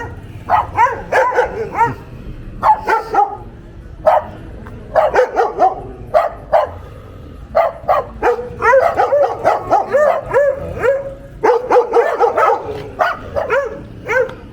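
A dog barking over and over, in quick runs of short high-pitched barks and yips with brief pauses between the runs.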